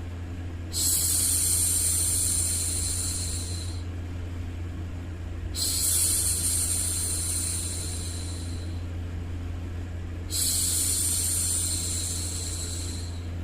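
A woman's voice hushing 'shhh' three times, each long, hissing shush lasting about three seconds with short gaps between, repeated in a steady rhythm to soothe a baby. Under it runs a steady, low background noise.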